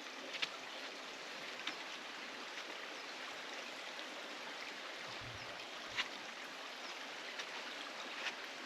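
Stream flowing with a steady, even rush of water, with a few light clicks scattered over it.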